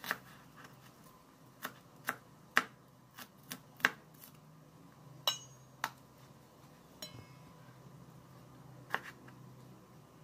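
Chef's knife chopping onion on a plastic cutting board: single sharp taps at an uneven pace, a few per second at most. About five seconds in, the knife is set down on the board with a brief metallic ring. A few lighter taps follow.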